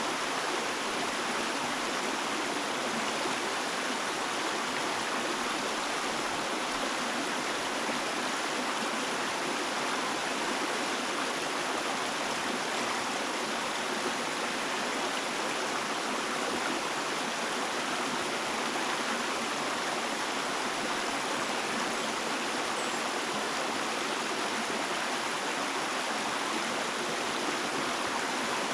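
Flowing stream water rushing and babbling steadily, with no breaks or other events.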